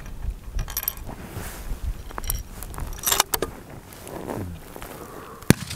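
Wind rumbling on the microphone, with scattered metallic clicks and rustling from handling gear, and a single sharp crack about five and a half seconds in.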